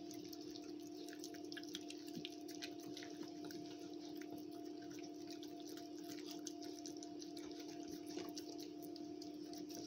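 Two Border Collie puppies eating sardines from a stainless steel bowl: a constant patter of wet licking, lapping and chewing clicks. Under it runs a steady low hum.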